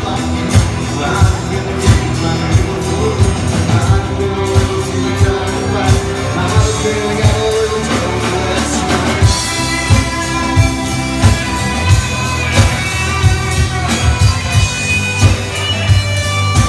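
Live band playing: drums keep a steady beat of about one and a half beats a second under electric guitar and a singer's voice. About halfway through, a higher melody line comes to the front.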